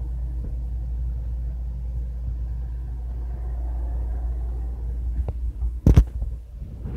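Steady low rumble of a moving vehicle heard from inside, with a couple of loud knocks about six seconds in.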